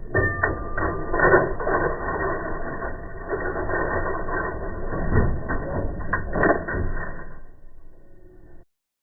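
National Model 1500 mechanical cash register being operated, its gears and ratchet pawls clattering, with sharp clicks about six seconds in. The sound cuts off suddenly near the end.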